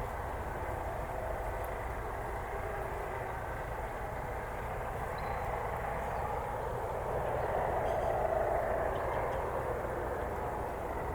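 Steady rumble of distant vehicle traffic, swelling about eight seconds in.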